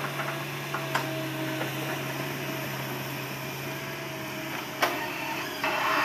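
Hitachi crawler excavator's diesel engine running at a steady hum as the machine moves on its tracks. There is a sharp knock about a second in, another near the end, and a louder rush of noise from the machine just before the end.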